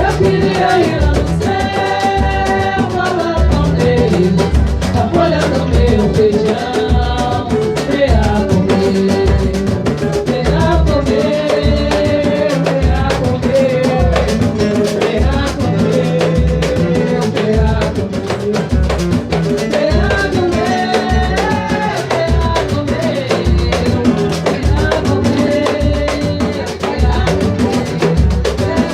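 Percussion group rehearsing: drums keep a steady beat under a sung melody.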